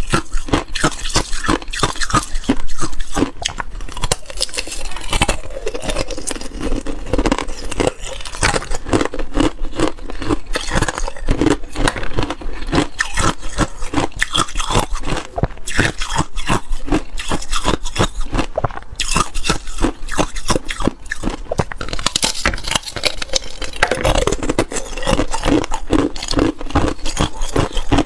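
Clear ice being bitten and chewed close to a clip-on microphone: a dense, continuous run of crisp crunches.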